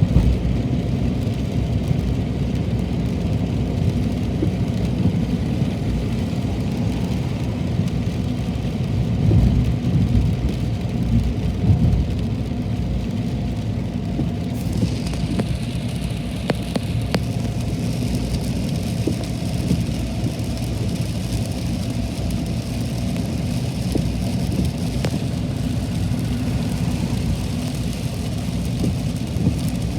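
Heavy rain falling steadily, with a constant low rumble. About halfway through, a higher hiss sets in and stays.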